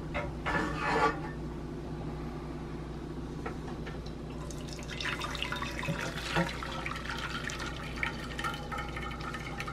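Hot water poured from a speckled enamelware pot into a glass baking dish, a splashing stream that starts about halfway through and runs on. A brief knock comes about a second in as the pot is handled.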